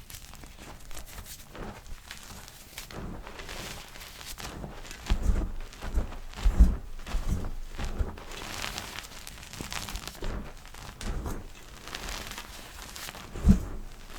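Blocks of gym chalk being crushed and crumbled by hand, with soft irregular crackles and crunches. There are several dull thumps around the middle and a sharper one near the end.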